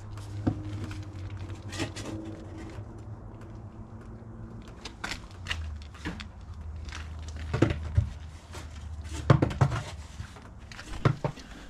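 Shovel scraping and knocking as loose dirt is dug out of a water shut-off box and tipped into a wheelbarrow, with a handful of sharp knocks scattered through, over a steady low hum.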